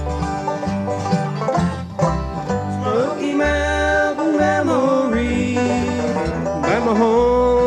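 Bluegrass band playing an instrumental intro: rolling banjo and strummed guitar over a walking upright bass, with mandolin. About three seconds in, a sustained lead line with sliding notes comes in over the rhythm.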